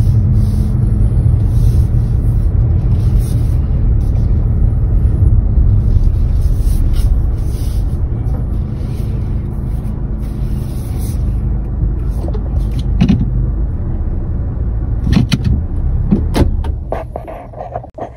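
Inside a car's cabin: a steady low rumble of engine and road noise as the car rolls slowly, easing off in the second half. A few sharp clicks and knocks come near the end, and the rumble cuts off just before the end as the car is stopped and switched off.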